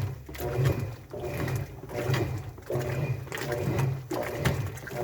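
Top-loading washing machine with a central agitator in its wash cycle: the motor hums and groans with each back-and-forth stroke, in a steady rhythm a little under a second per stroke, with water sloshing.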